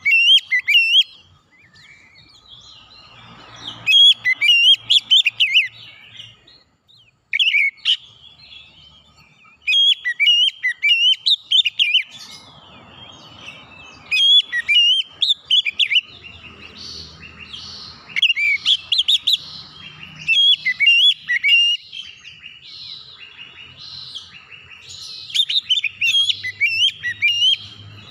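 Oriental magpie-robin singing loud, fast, whistled phrases of sharply rising and falling notes, each phrase a second or two long, repeated with short pauses.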